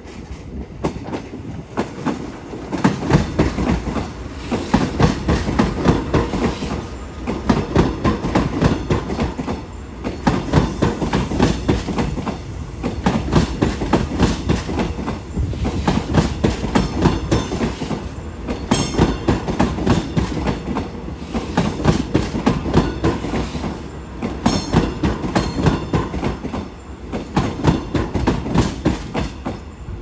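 Seoul Subway Line 1 electric commuter train rolling over jointed rails, its wheels clattering in repeated groups of clacks as each set of wheels crosses the rail joints. The sound builds over the first few seconds as the train arrives and then carries on in a steady clickety-clack as the cars pass.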